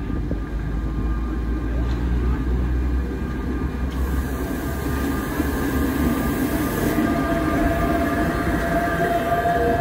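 Sóller tramway's vintage wooden electric tram and its trailer cars passing close by on street track, a steady low rumble of steel wheels on the rails. A thin steady whine comes in near the end as the cars go past.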